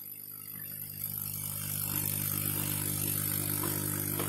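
Electric blower motor starting up, building to full speed over about a second and a half, then running with a steady hum and hiss.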